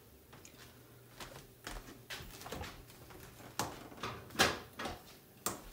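A few light clicks and knocks of a lidded glass bowl being handled and set aside, getting louder and more frequent in the second half.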